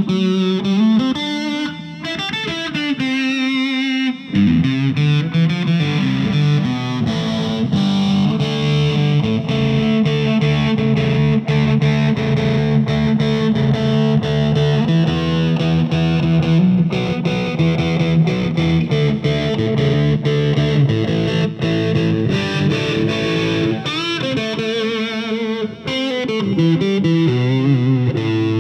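Electric guitar through a Fender Mustang LT25 modelling amp on its 'Super Rock' factory preset, an 80s-rock distorted amp model: held distorted chords and riffs, with a brief break about four seconds in.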